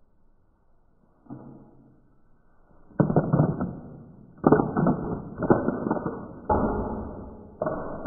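Handfuls of peanuts in the shell thrown at a plastic oni mask, each throw a noisy hit that starts suddenly and fades over about a second. A faint one comes about a second in, then four or five loud ones from about three seconds in.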